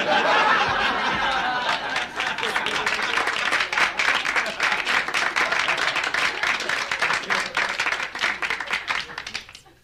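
Crowd applauding and cheering: it starts abruptly with voices cheering over the clapping, then steady applause that fades out near the end. It is an audience sound effect, not the cat's play.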